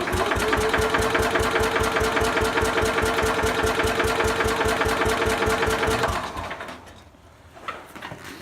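1968 Sears Super 12 garden tractor engine being cranked over on its starter in a hard cold start: a steady whine over a quick, even chugging for about six seconds, which then winds down without the engine catching.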